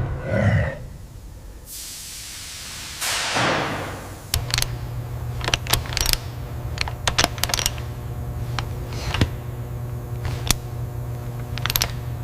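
Two falling whooshes, then a steady low machine hum with about a dozen irregular sharp metallic clicks and knocks over it.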